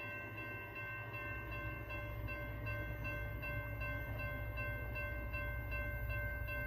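Railroad grade-crossing warning bell ringing in a steady repeating ding as the crossing gates lower, stopping near the end once the gates are down. A low rumble runs underneath.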